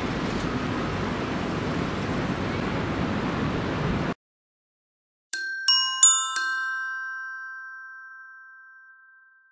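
Steady outdoor background noise with wind on the microphone, cut off abruptly about four seconds in. After a second of silence, a four-note chime sounds: four quick struck bell-like notes that ring on and fade away over about three seconds.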